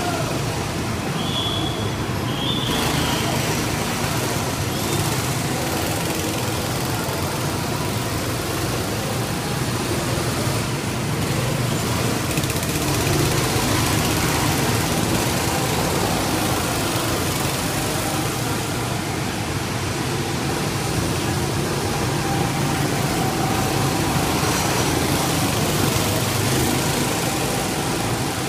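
Several go-kart engines running as the karts lap a slick track, a continuous mix of engine drone and tyre noise that rises and falls slightly as karts pass.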